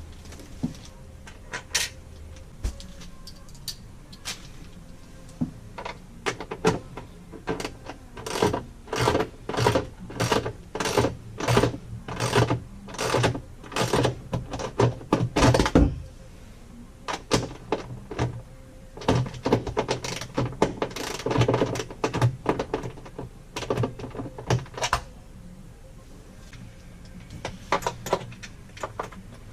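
Ratchet wrench clicking in quick repeated strokes, in two runs with a pause between, while fastening the toilet down at its base.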